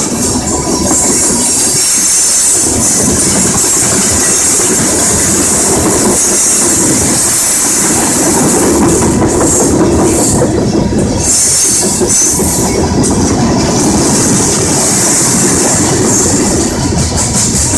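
Open-top hopper cars of a unit freight train rolling past close by: a steady loud rumble with the clickety-clack of wheels over the rail, and a continuous high hiss.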